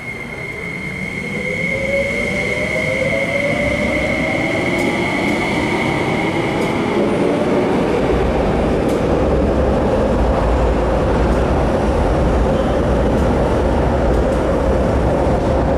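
MTR SP1900 electric train pulling out of an underground station: its traction motors whine and rise in pitch as it speeds up, over a steady high whine that stops about seven seconds in. From about eight seconds in, a steady deep rumble of the running train fills the tunnel.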